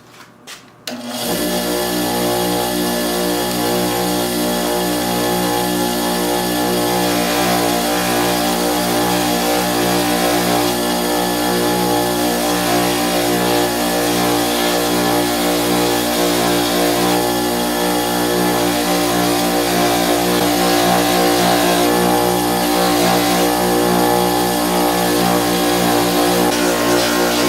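Electric motor of a bench grinding or buffing machine switched on about a second in, then running steadily, a constant hum with a whir above it.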